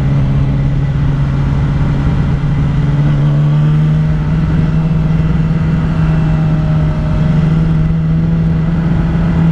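Sportbike engine running at a steady cruise through curves, its note edging up over the first few seconds and then holding, with wind rushing over the microphone.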